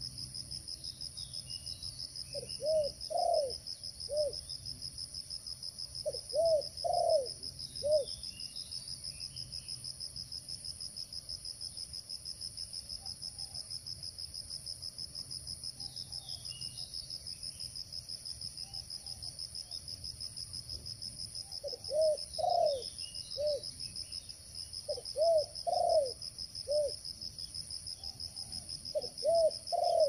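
Spotted dove cooing in short phrases of three or four low coos, twice in the first eight seconds and three more times near the end. A steady, fast-pulsing high insect drone from crickets runs underneath.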